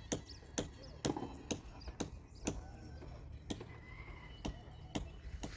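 A series of about ten sharp knocks or taps, roughly two a second and unevenly spaced, over a low rumbling background.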